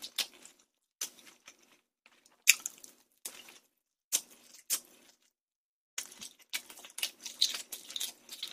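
Close-miked mouth sounds of a person chewing crunchy glazed Korean fried chicken (dakgangjeong): a string of short, irregular crunches, pausing briefly about five seconds in, then coming quicker toward the end.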